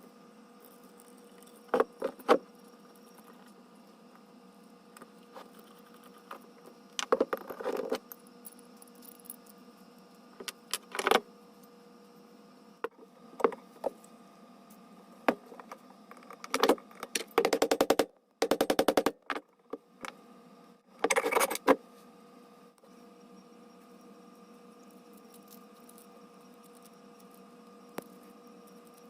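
Small metal lathe parts and hand tools clinking and rattling in scattered short bursts as a Craftsman 109 lathe is taken apart, with a quick run of rapid even clicks about two-thirds of the way through.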